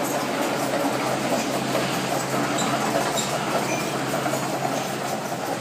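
Kobelco excavator working close by: a steady engine hum under continuous mechanical rumble and clatter, with faint short high squeaks now and then.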